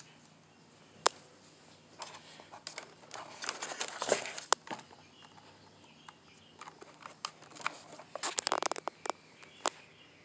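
Handling noise as an HDMI cable is plugged into a camera and monitor: a few sharp clicks spread through, with bursts of rustling and small knocks about three to four seconds in and again near the end.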